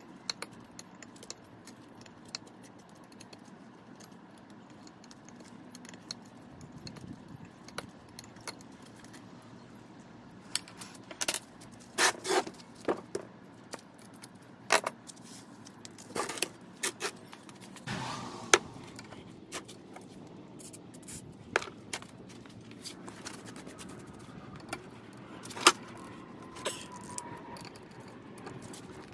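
Steel machinist's vise parts and hand tools being handled: irregular metal clinks, knocks and scrapes, with a few sharper knocks in the middle and one loud knock near the end.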